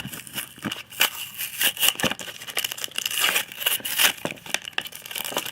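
Foil Pokémon booster pack wrapper crinkling and tearing as it is opened by hand, in irregular sharp crackles.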